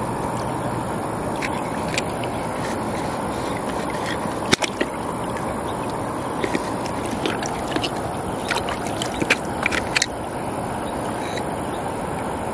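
A knife blade scraping and clicking against the shell of a large freshwater mussel as it is pried open, with a sharp click a third of the way in and a quick run of clicks about two-thirds through. Under it, shallow river water runs with a steady rush.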